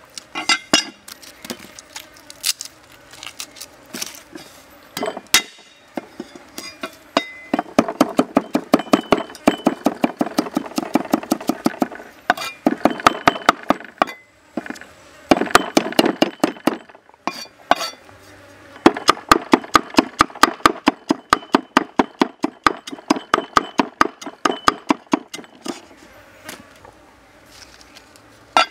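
Steel cleaver chopping garlic on a thick round wooden chopping block: fast runs of sharp knocks, several a second, broken by short pauses, with only scattered strikes at first.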